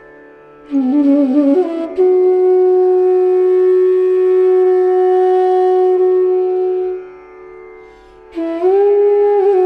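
Background music in an Indian classical style: a woodwind melody with ornamented turns and one long held note of about five seconds, over a steady drone, with a short lull before a second phrase near the end.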